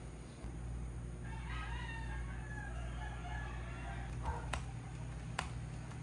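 A rooster crowing once, a drawn-out call lasting about two seconds, over a steady low hum. A couple of sharp clicks follow near the end.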